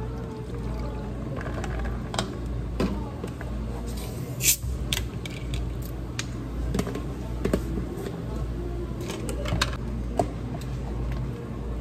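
Cafe work sounds: scattered light clicks and clinks of cups and utensils being handled, the sharpest about four and a half seconds in, over a steady low machine hum.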